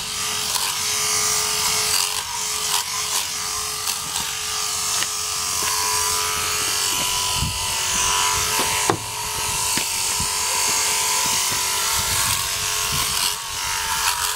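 Handypiece Pro portable sheep clipper running with a steady hum as it cuts wool from around a sheep's tail and crutch. There is one sharp knock about nine seconds in.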